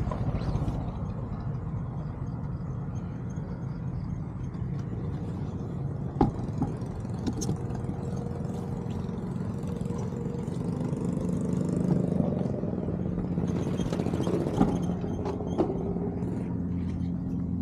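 Small motorbike engine running steadily at low revs, its pitch rising slightly about ten seconds in, with a few short sharp clicks.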